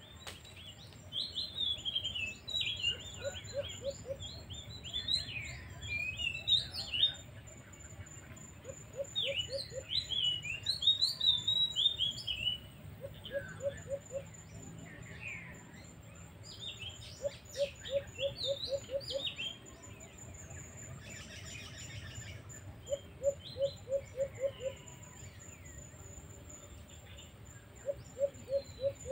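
Birds calling outdoors: clusters of quick high chirps and slurred whistled notes come in bursts of a few seconds. Between them, about every four to five seconds, a lower call of four to eight short, evenly spaced pulses repeats, over a thin steady high tone.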